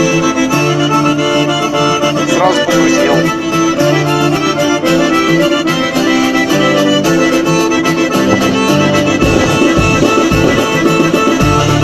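Lezginka dance music led by an accordion playing a fast melody of held and changing notes.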